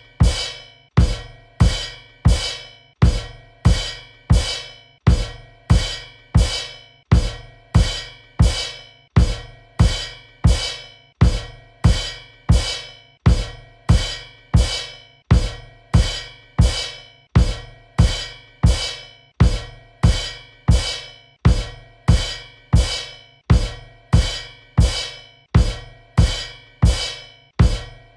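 Drum-kit cymbal kicks: bass drum and cymbal struck together again and again in a steady run. Each hit rings out and fades before the next.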